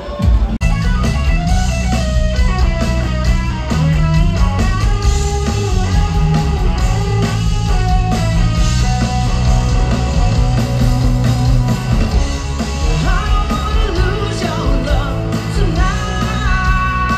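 Portuguese popular band music with a steady bass line, guitar and singing.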